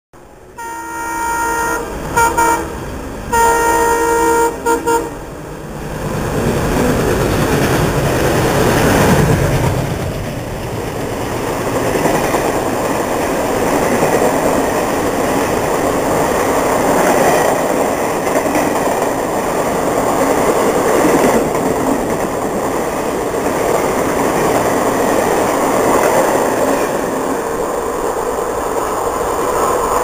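WDM-3A diesel locomotive sounding its horn in a run of long and short blasts over the first five seconds. Its engine then swells up and passes at speed about nine seconds in. After that the express's coaches roll past steadily for the rest.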